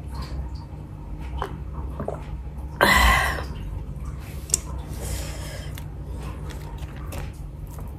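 A few small swallowing clicks as water is drunk from a glass, then a loud breathy exhale about three seconds in. After a sharp tick, there is a soft rustle of fingers working into a plate of rice.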